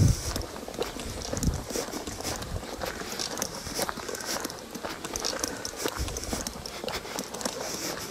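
Footsteps crunching on a gravel path at a walking pace, about two steps a second.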